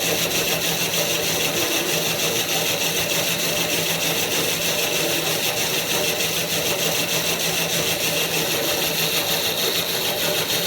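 A small plastic filament extruder running: its single-phase induction motor drives the screw through a chain and sprocket and a worm gearbox, giving a steady hum and hiss with a fast, even mechanical rattle.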